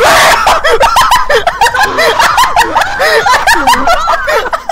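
A person laughing hard and without a break, in quick, high-pitched giggles.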